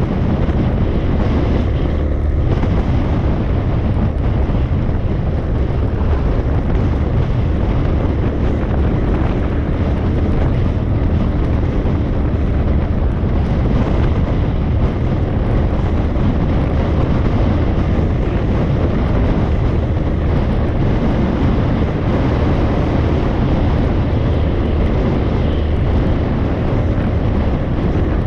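Steady wind rush buffeting the microphone on a moving motorcycle, mixed with the bike's running and road noise, heaviest in a low rumble.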